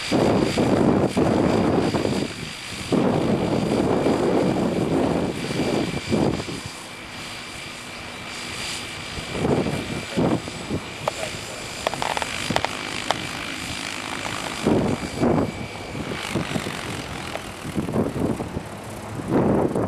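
Tazer 800 radio-controlled helicopter hovering just above the ground: a steady high whine from its drivetrain and rotor under heavy, uneven low rumbling that is loudest for the first six seconds and then comes and goes in short swells. The whine drops away a few seconds before the end.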